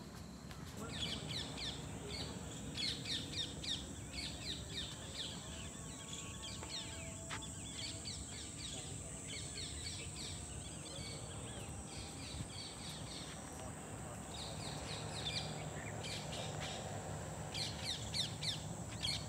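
Birds chirping and calling in rapid clusters of short, high notes, again and again, over a steady high-pitched tone and a faint low rumble.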